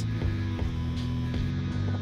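Instrumental background music with sustained notes and no speech.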